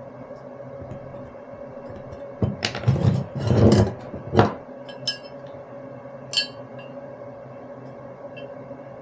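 Small steel pieces and a steel combination square clattering and scraping on a workbench, loudest between about two and a half and four and a half seconds in, followed by a few sharp metallic clinks. A steady low hum runs underneath.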